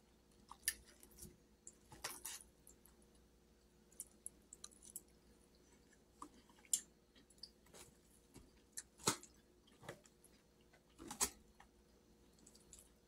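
Quiet close-up chewing and mouth sounds of someone eating soft food: collard greens and macaroni and cheese. Scattered small clicks and taps come through it, the loudest about nine and eleven seconds in.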